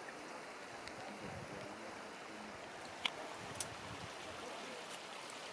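Steady rush of meltwater running over wet rock, with two faint sharp clicks about three seconds in.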